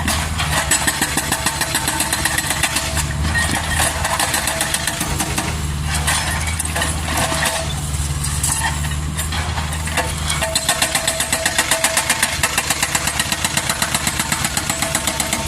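Kobelco SK200 excavator's diesel engine running with a steady low drone; from about ten seconds in, a rapid, even pulsing comes into the sound.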